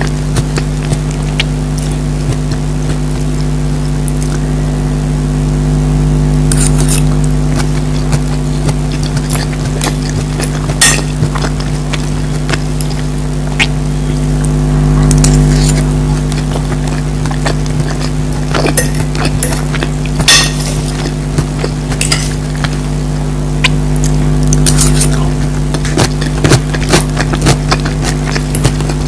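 Eating sounds: chewing with scattered sharp clicks and clinks of a utensil against a plate, over a steady low hum.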